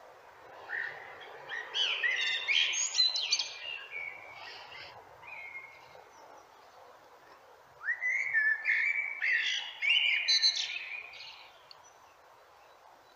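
Male common blackbird singing two song phrases, each three to four seconds long. The first starts about a second in and the second about eight seconds in, with a pause of a couple of seconds between them.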